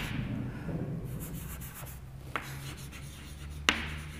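Chalk writing on a chalkboard: faint scratching strokes with three sharp taps as the chalk strikes the board, over a low steady hum.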